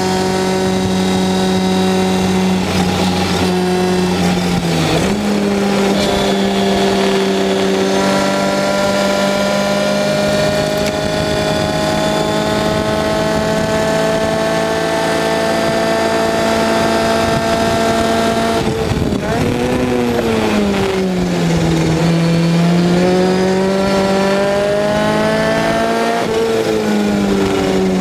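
Engine of an open-cockpit Lotus Seven-style race car at racing speed, heard from the cockpit. The note dips briefly about five seconds in, then climbs slowly and steadily for a long stretch. About two-thirds of the way through it falls away sharply and then climbs again.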